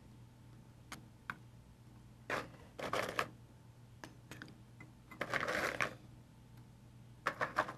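Vanilla wafer cookies being handled: picked from a plastic bowl and set into a glass baking dish. Scattered light clicks and short crisp rustles, about half a dozen, with quiet between.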